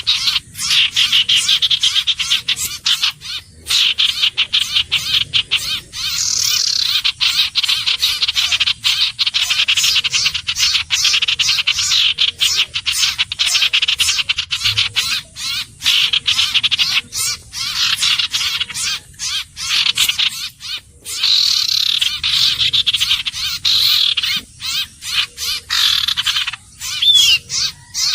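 Common iora calling in fast, rattling trills that run on in long stretches with short breaks, and a short whistled note near the end.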